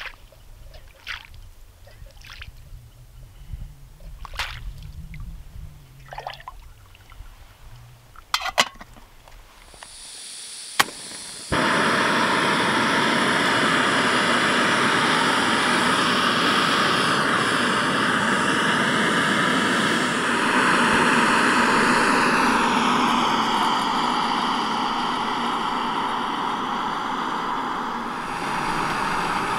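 Lake water splashing in short bursts as a metal mug scoops it from the shallows. Then a gas canister stove (a Coleman burner on a screw-on canister) hisses as its valve opens, clicks as the igniter fires, and lights with a sudden loud rush. The burner runs steadily at full flame for the rest of the stretch.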